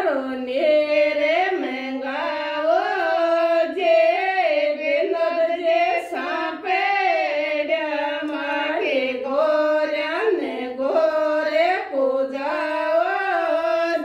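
Women singing a Rajasthani Gangaur devotional folk song together, unaccompanied, in one melody line of steady, repeating phrases.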